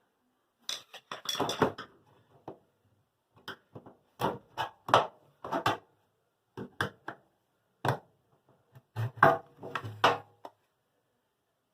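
Irregular clicks and knocks of hard parts being pried loose and handled on a front-load washer's front panel, some in quick clusters and some single, with short pauses between.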